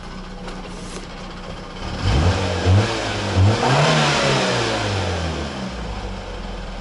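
Fiat Uno's engine revved in a few quick rising blips about two seconds in, then the revs fall away slowly back to a steady run.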